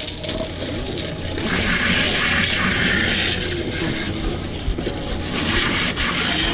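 Deck-wash hose with a pistol-grip spray nozzle blasting a jet of water onto a boat's deck floor: a steady hiss of spray splashing on the deck.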